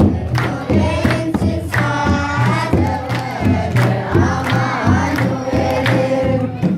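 A children's choir singing an Eritrean Orthodox Christmas hymn (Lidet mezmur) together, with a kebero drum and hand claps keeping a steady beat.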